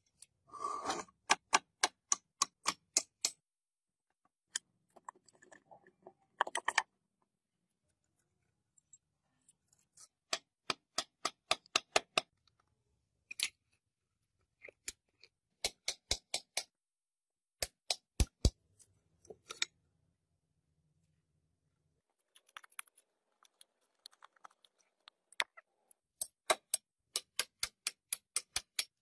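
Runs of sharp ticking clicks from hand tools on scooter parts, about four a second, each run lasting a second or two, with pauses between runs.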